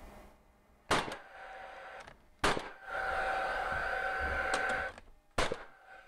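Paslode cordless gas framing nailer toenailing a 2x4 stud: three sharp nail shots, spaced about one and a half and three seconds apart, each followed by the tool's fan whirring steadily before it stops.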